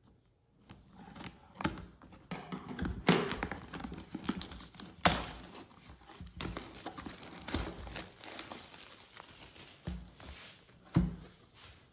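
Clear plastic wrap being torn and peeled off a cardboard product box, crinkling and crackling, with sharp cracks about three and five seconds in. A low knock near the end as the box is handled.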